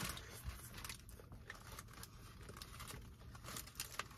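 Faint bite into a fried chicken sandwich, then closed-mouth chewing, with the paper wrapper crinkling in the hands.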